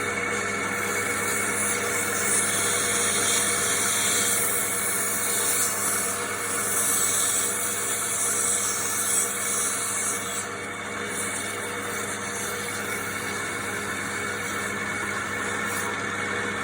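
Wood lathe motor running steadily while a cutting tool shaves the spinning wood, a hiss that eases off about ten seconds in.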